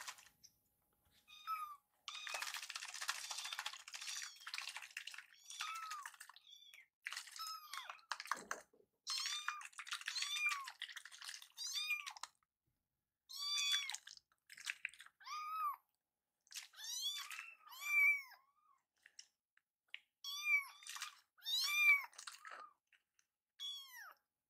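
A young kitten mewing over and over, many short high-pitched mews that rise and fall, with a few seconds of scratchy noise near the start.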